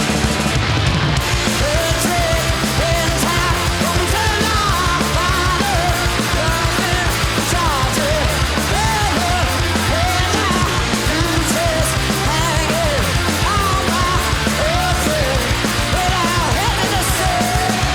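Live rock band playing a loud, dense jam of distorted guitars, bass and drums, with a wavering, bending lead melody over the top.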